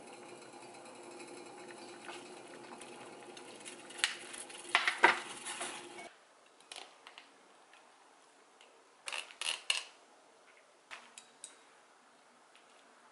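Kitchen clatter: metal utensils clinking against a saucepan over the steady background noise of the stove, loudest about four to six seconds in. Then the sound drops suddenly to quiet, and metal chopsticks click lightly against bowls in a few short groups as noodles and meat are served.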